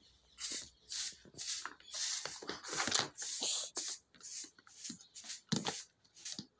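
A calf's hooves scuffing and tapping on a stone floor as it walks, an irregular run of short scrapes and knocks with one louder knock near the end.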